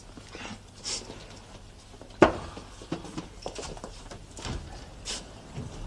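Scattered knocks and shuffling of several people moving about a room, with one sharp knock about two seconds in.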